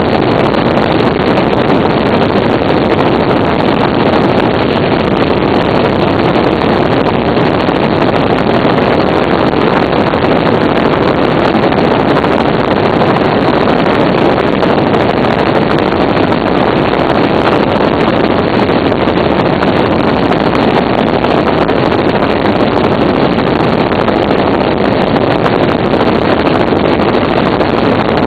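Helicopter in flight heard from inside the cabin: a loud, steady, unchanging drone of engine and rotor noise.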